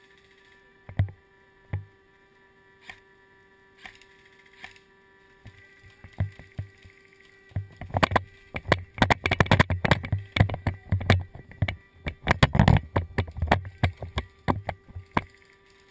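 Close knocks and clatter of gear and a body-worn camera on a player moving across pine-needle ground: a few single knocks about a second apart, then a dense, irregular run of knocks and thumps as he runs, over the second half.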